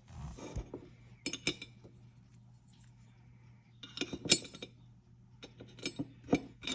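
Small metal gun parts clinking and clicking as they are handled and set down on a workbench, in several short clusters, the loudest about four seconds in.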